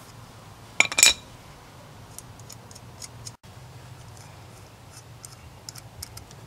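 Metal clicks and clinks of an adjustable wrench working the mounting nuts on the studs of an A/C condenser fan motor: a quick cluster of sharp clicks about a second in, the loudest, then scattered light ticks.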